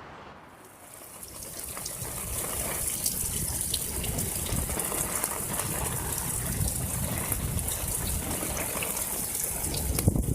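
A heavy storm downpour comes on about a second in and then keeps up as a dense hiss, with many small impacts ticking through it.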